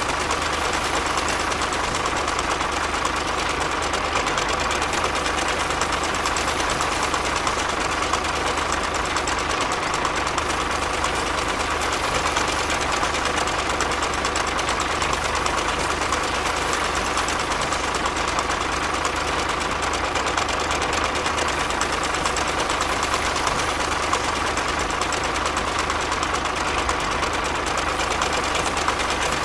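Model tractor's motor running steadily with an even, unbroken hum as the miniature tractor pulls a plough through sand.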